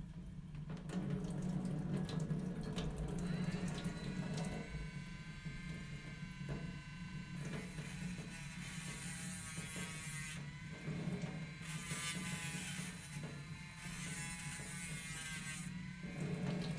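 A small electric motor runs with a steady low hum, its pitch sweeping upward several times as it speeds up. Patches of gritty hiss come and go, consistent with sanding a foam float blank to shape.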